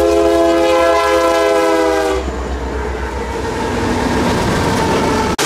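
Nathan P3 air horn on an EMD GP38-2 diesel locomotive sounding a long chord, which sags slightly in pitch and stops about two seconds in. The train's running noise and diesel rumble follow, until a sudden cut near the end.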